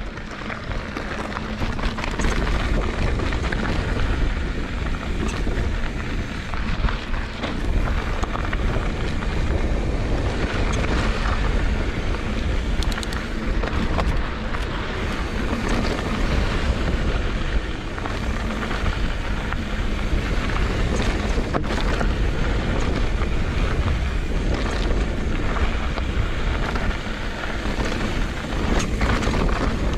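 Wind buffeting the camera microphone over the crunch and rattle of a mountain bike rolling on a rocky dirt trail, with a steady low rumble and scattered sharp knocks.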